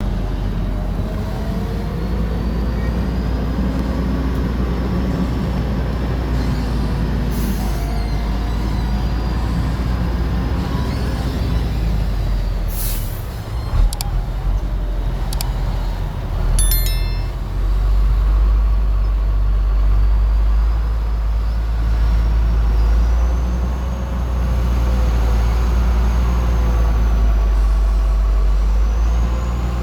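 Heavy diesel construction machinery running with a steady low drone. About halfway through come a short burst of hiss, then a few sharp metallic clicks and clanks.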